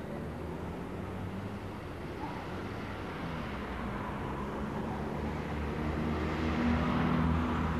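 Road traffic: car engines running steadily along a street, swelling near the end as a car passes close by.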